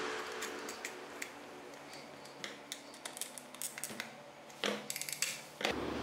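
Small scattered clicks and taps of hand assembly work: a lever microswitch on a wooden mounting plate being fitted and a plastic jumper wire connector being handled, with a quick run of sharper clicks about five seconds in.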